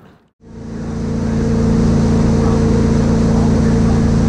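Fishing boat's motor running steadily at speed, a constant engine drone with a rush of water and wind over it. It fades in about half a second in and then holds level.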